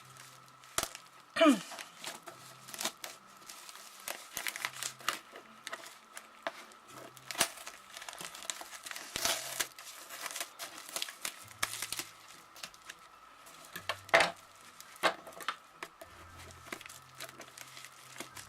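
Packaging being unwrapped by hand: irregular crinkling and rustling with some tearing, the sharpest crackles about a second and a half in and near the end. A faint steady high-pitched tone runs underneath.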